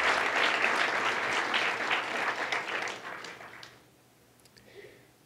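Audience applauding, dying away about three and a half seconds in.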